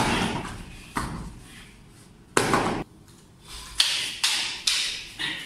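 Heavy thuds of a body thrown down onto foam gym mats in a takedown: two sharp impacts, then a louder half-second thud. Near the end come four sharp clacks, about two a second, as rattan fighting sticks strike each other in sparring.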